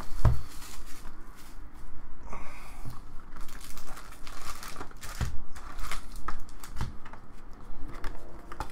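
Cellophane shrink wrap torn off a trading-card box and crinkled, then foil card packs lifted out of the cardboard box and set down in a stack, with irregular rustles and light knocks. A low thump just after the start is the loudest sound.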